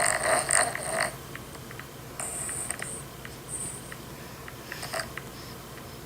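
Dog snoring: three snores about two seconds apart, the first the loudest, with faint ticks in between.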